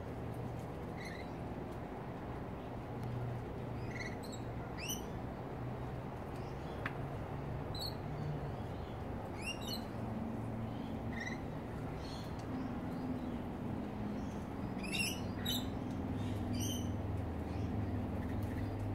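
Birds giving short, sharp, high-pitched calls every second or two, a quick cluster of them a little after halfway, over a low steady hum.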